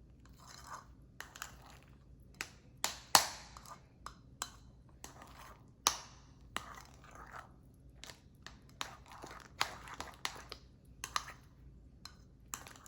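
A spoon stirring and scraping a thick condensed-milk and milk-powder mixture in a microwave bowl: irregular clicks and short scrapes of the spoon against the bowl.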